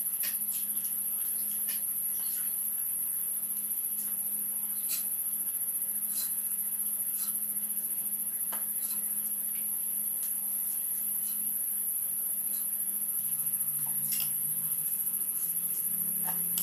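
A steady high-pitched drone of night insects, with scattered soft clicks and taps as pieces of snakehead fish are handled on a wooden cutting board.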